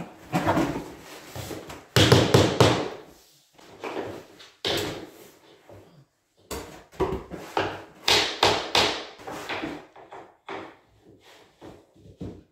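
Laminate flooring planks being knocked together with a rubber mallet to close the joints, heard as a series of sharp knocks in clusters, with the clatter of planks being handled between them.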